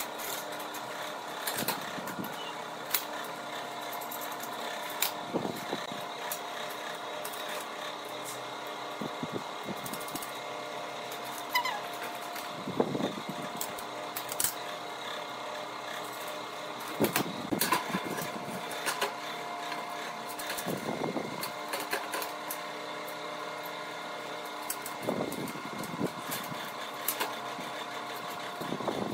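Steel parts clinking and knocking on a steel workbench, with the clicks of a wrench turning nuts as flat-bar links are bolted to the ladder's steel treads, over a steady machine hum.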